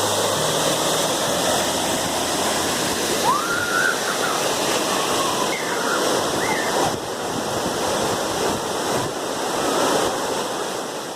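Waterfall: a steady rush of falling water. A few brief rising-and-falling whistles sound over it around the middle.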